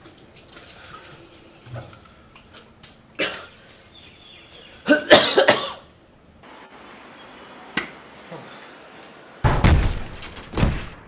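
A person coughing in separate loud fits: a short cough, a longer hacking burst about halfway through, and another heavy fit near the end.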